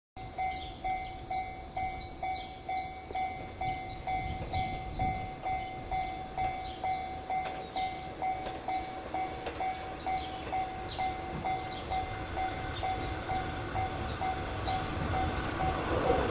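Japanese level-crossing warning bell ringing in a steady electronic pulse, a little under twice a second, as a train approaches. The train's rumble grows louder over the last few seconds.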